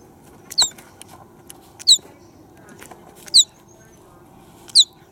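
Four short high-pitched chirps, about one every second and a half, each a quick gliding call, over a faint steady background.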